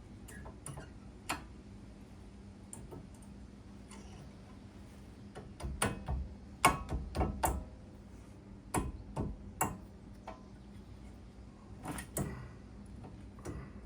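Scattered clicks and light knocks from brake pads and hardware being handled and fitted on a car's disc brake, in a few quick clusters around the middle and near the end, over a faint steady hum.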